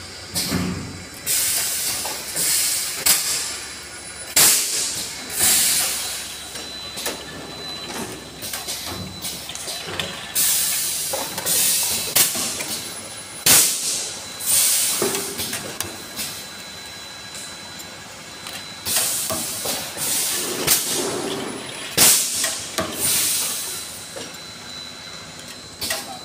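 Pneumatic cylinders on an automatic multi-head oil bottle filling line exhaust compressed air in short, sharp hisses every few seconds, with occasional sharp clacks from the machine's moving parts.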